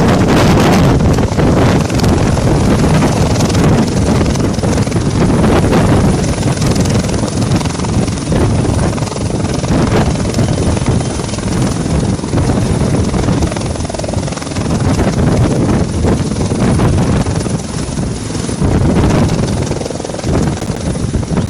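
Helicopter landing, heard loud and close: the rotor and engine run steadily throughout, with a thin, steady high whine above the noise.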